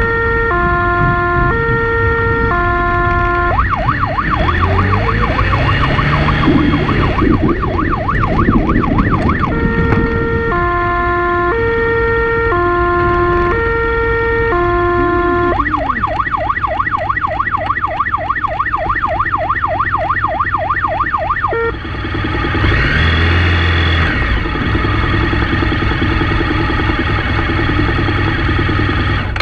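Police siren alternating between a two-tone hi-lo and a rapid yelp, switching pattern about every six seconds, over a vehicle engine revving on a rough dirt track. The siren stops about two-thirds of the way through, leaving the engine and bumping.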